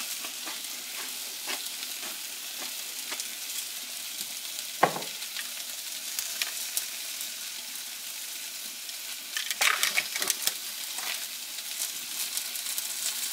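Food sizzling steadily in a hot frying pan, with a cooking utensil stirring and scraping in the pan: a sharper knock about five seconds in and a flurry of scrapes and clatter near ten seconds.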